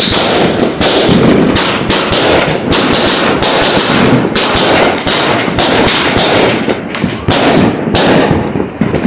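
DogRace 200-shot firework cake firing shot after shot in a rapid, irregular string of bangs, thinning slightly near the end.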